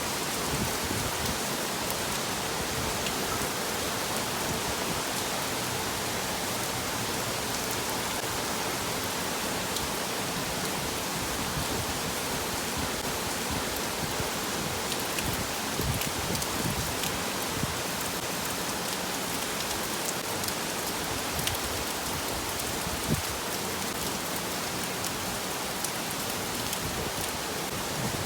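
Steady rain falling: an even hiss with scattered drop taps, and one louder tap late on.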